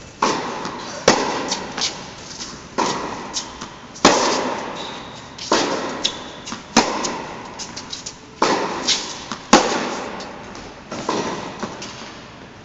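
Tennis rally in a large indoor hall: sharp racket strikes on the ball and ball bounces about every second or so, each trailing a hall echo.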